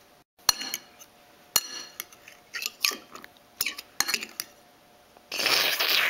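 Metal fork clinking and tapping against a china plate several times, each tap ringing briefly, then a louder scrape of the fork across the plate about five seconds in.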